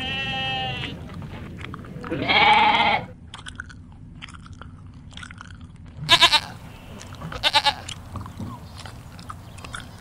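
Goat bleating several times: a call tails off right at the start, a full bleat comes about two seconds in, and two shorter, wavering bleats follow around six and seven and a half seconds. Between the calls, soft clicks of grass being cropped and chewed.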